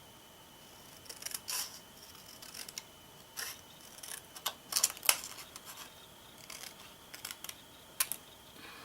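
Paper snips cutting a small piece of scrap paper by hand: a string of short, sharp, irregular snips.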